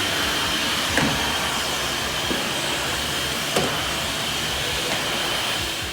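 HEPA vacuum running steadily, a motor-driven rush with a constant high whine and a couple of faint knocks, fading out near the end.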